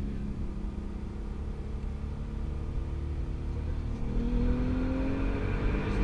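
Turbocharged VW Golf Mk4 R32's 3.2-litre VR6 engine heard from inside the cabin, running at steady revs, then climbing in pitch and getting louder under acceleration from about four seconds in.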